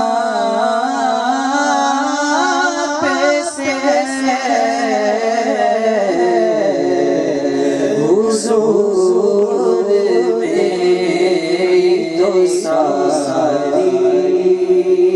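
A man's voice singing an Urdu naat unaccompanied into a microphone, in a wavering, ornamented melody over a steady low held note.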